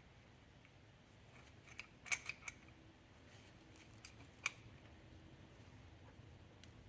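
A few faint, sharp metallic clicks from wrenches working on the mower's oil drain fitting: a quick cluster of four about two seconds in and two more around four and a half seconds, over a low steady hum.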